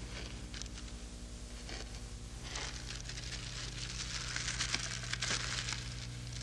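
Leafy branches rustling and crackling as they are handled, loudest about four to five and a half seconds in, over a steady low hum.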